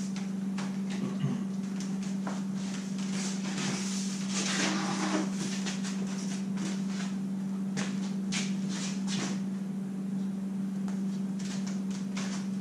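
Assembled PVC pipe frame being handled and tilted: scattered light knocks and clatters of plastic pipe and fittings, with a short scrape about five seconds in, over a steady low hum.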